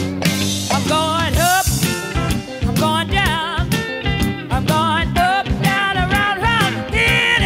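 Blues song: a woman sings in long, sliding, wavering phrases over a guitar and drum band.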